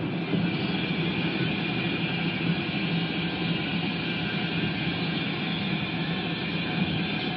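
Steady road and engine noise inside a Jeep's cabin while it cruises at highway speed, a constant drone with tyre rumble.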